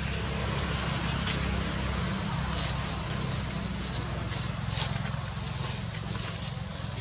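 Steady high-pitched insect drone over a low, constant rumble, with a few faint clicks.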